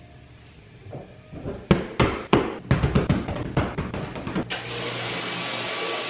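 A run of irregular knocks and thumps, then a cordless stick vacuum cleaner switches on about four and a half seconds in and runs steadily with a high whine.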